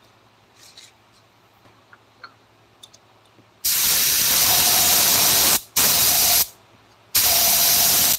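Compressed air hissing from an air nozzle in three bursts, about two seconds, under a second, then about a second, each starting and stopping abruptly with a faint whistle in the hiss. A few light clicks and taps come before them.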